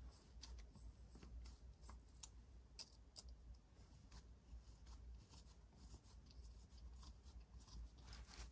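Faint light clicks and rubbing as gloved hands handle and seat the parts of a SimpleHuman soap dispenser's housing, scattered irregularly over a low hum.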